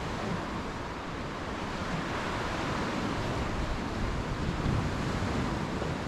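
Sea waves washing among the concrete tetrapods of a breakwater: a steady rush of water that swells a little partway through, with wind rumbling on the microphone.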